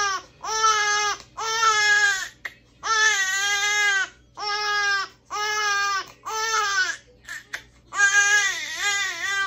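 Infant crying in a string of short, high wails, about one a second, with brief breaks between them.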